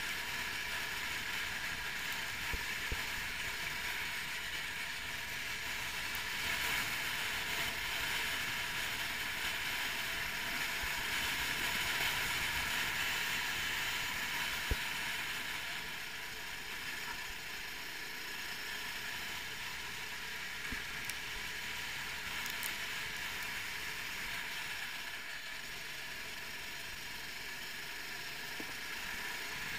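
390cc kart engine running at speed through a lap, heard from the kart itself as a steady mechanical drone mixed with wind and road noise. It swells slightly around the middle of the lap section and eases back a little later.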